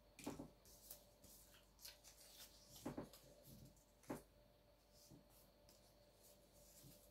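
Faint handling sounds: rustling and a few short clicks and knocks, the loudest about three and four seconds in, over a faint steady hum.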